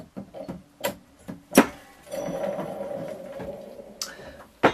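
Motobecane Mobylette clutch being worked by hand onto the engine's crankshaft: several sharp metal clicks and knocks, the loudest about one and a half seconds in, then about two seconds of steady metal-on-metal rubbing as it slides into place, and a final click near the end.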